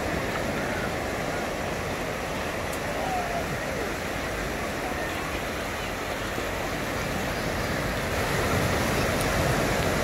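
Ocean surf breaking and washing up a sandy beach: a steady rushing noise that grows a little louder near the end.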